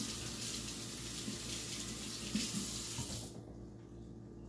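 Kitchen sink tap running as hands are washed under it, then turned off about three seconds in.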